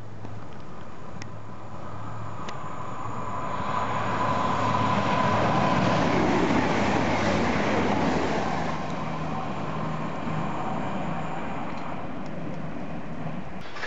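CrossCountry Voyager diesel multiple unit passing at speed: its underfloor diesel engines and wheels on the rails grow louder, peak about five to eight seconds in as it goes by, then fade. A second Voyager is heard approaching near the end.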